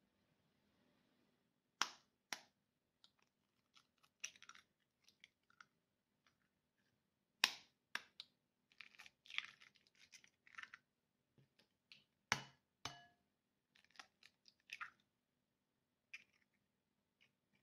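Three eggs being cracked open, each with a pair of sharp taps of the shell, about five seconds apart, with soft crackling of the shells being pulled apart in between.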